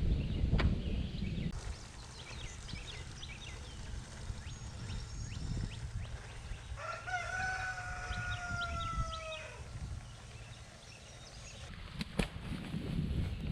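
A rooster crowing once, one long call that falls slightly in pitch, with small birds chirping in the seconds before it.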